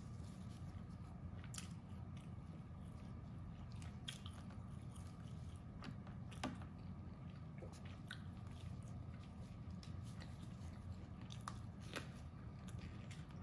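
Faint eating sounds of Peking duck wrapped in thin pancakes: scattered soft clicks and crunches of chewing and biting, over a steady low hum.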